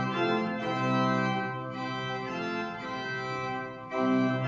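Pipe organ playing sustained chords on a full ensemble of stops, a bright sound rich in overtones. The chords change several times, with a short break just before four seconds and then a louder chord.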